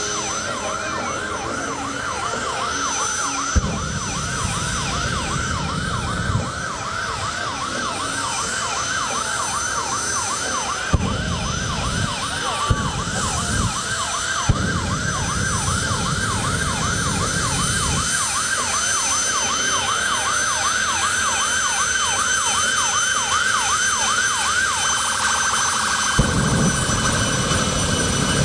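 Jet truck's siren yelping rapidly up and down over the steady high whine of its jet engine. Several times the jet opens up into a low rumbling blast as it shoots flame, with sharp pops, and the siren stops near the end as one more blast begins.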